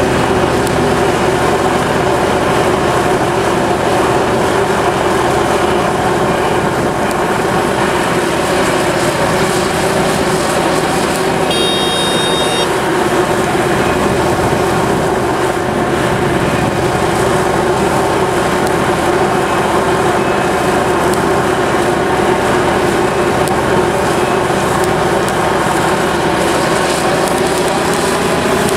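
Heavy diesel earthmoving machinery working: the Liebherr 974B excavator's engine drones steadily, its pitch rising and falling slowly as it loads. A short high beep sounds once, about twelve seconds in.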